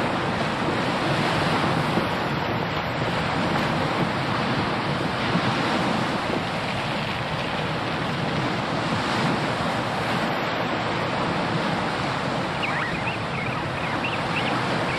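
Sea surf breaking on a shore, with wind: a steady rushing noise. A few faint, high, chirp-like calls come in near the end.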